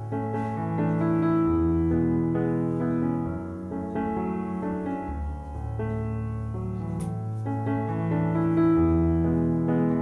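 Background piano music with slow, held notes and chords.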